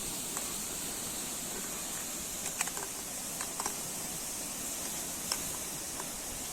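Steady hiss of sea surf, with a few short, sharp clicks scattered through it.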